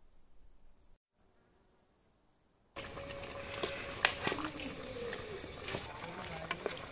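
Crickets chirping faintly, a row of short high chirps over a thin steady whine. About three seconds in, a louder stretch of hiss with a few sharp clicks and knocks takes over, from a pan of curry cooking on an open wood fire.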